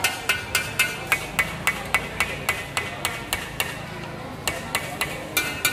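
Rapid, even sharp knocks, each with a short ringing tone, about four a second. They pause for about a second past the middle, then start again.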